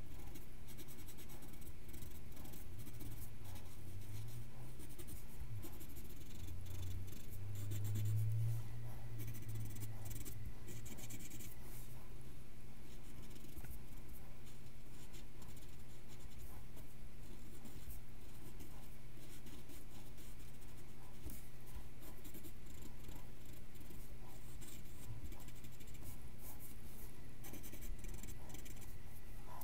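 Graphite pencil scratching across paper in short, repeated strokes while a drawing is inked in, over a steady low hum.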